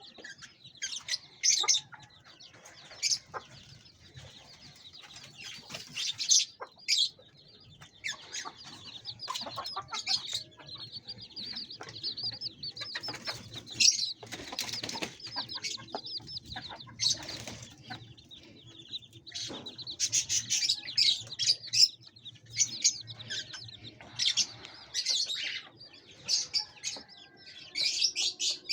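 A colony of small caged parrots, lovebirds or budgerigars, chirping and chattering continuously, with many quick high chirps overlapping and no pause.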